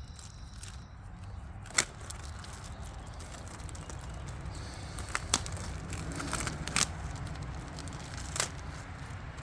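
Steel mower blades and their packaging being handled during unboxing: rustling with a handful of sharp knocks and clinks, the loudest about two seconds in, over a steady low rumble.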